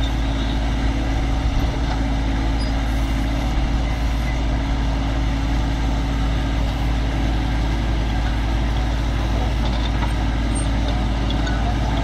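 Kubota B2420 compact tractor's three-cylinder diesel engine running steadily while it drives the hydraulic backhoe digging into soil.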